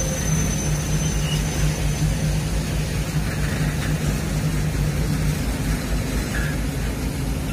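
Freight train of GATX tank wagons rolling past at close range: a steady rumble of steel wheels on the rails with a low hum.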